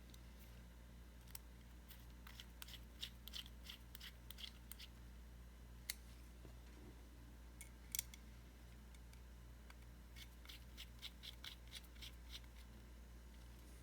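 Faint quick clicks and ticks of small metal parts and a small tool being handled while reassembling a vape mod, in two short runs, with two sharper single clicks in between, over a low steady hum.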